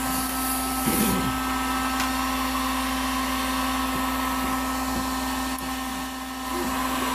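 Heat gun blowing with a steady whir and hum, heating a jig head before it is dipped in fluidized powder paint.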